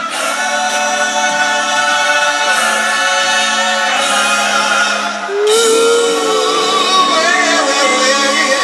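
Live rock band, with electric guitars, drums and keyboards, playing through a large PA and heard from the crowd, with several voices singing together over sustained chords. A rising slide comes in about halfway through.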